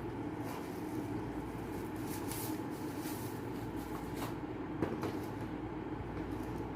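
Rustling and a few light clicks from packaging and a laptop being handled over a steady background hum, with one sharper click about five seconds in.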